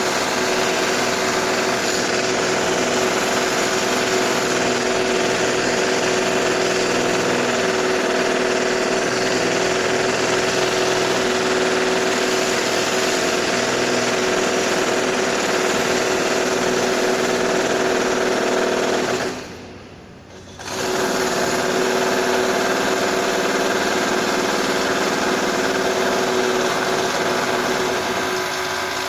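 Power drill running during home renovation work, a steady whine with a hard buzzing edge held for long stretches. It stops briefly about two-thirds of the way in, then starts again, and winds down at the end.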